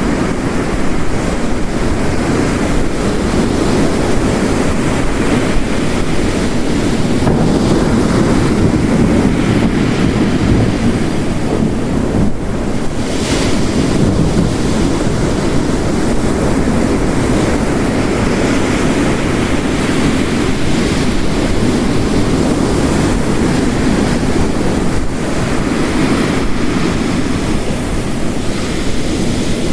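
Heavy rain and ocean waves crashing on a rocky coast, mixed into one steady, dense wash of noise, with a brief sharper hiss about thirteen seconds in.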